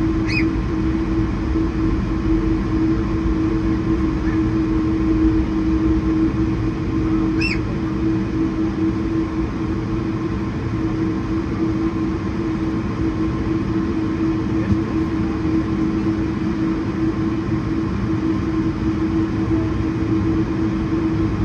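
Steady cabin noise inside an Airbus A220-100 airliner: its Pratt & Whitney PW1500G geared turbofans running, a constant rumble with a steady hum. Two short rising chirps come through, one at the very start and one about seven seconds in.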